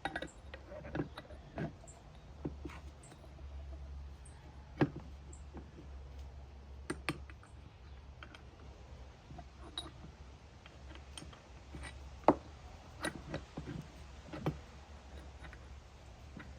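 Scattered sharp clicks and light metal taps from ball joints, spindles and hand tools being handled and fitted, over a low steady hum. The clicks come at irregular intervals, with the loudest about five seconds in and again about twelve seconds in.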